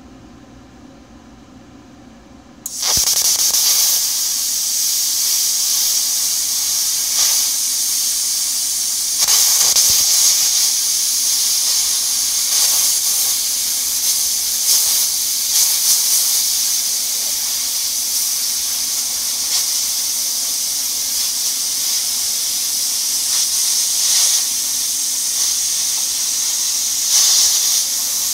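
Plasma cutter arc striking about three seconds in after a low steady hum, then a loud steady hiss of the arc and air jet cutting through rusty sheet steel, swelling now and then, with the cutter running on low air pressure.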